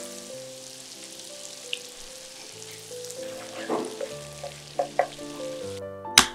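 Food frying in a hot pan with a steady sizzle, stirred or turned with a few short scrapes about halfway through. The sizzle cuts off abruptly near the end, followed by a single sharp knock.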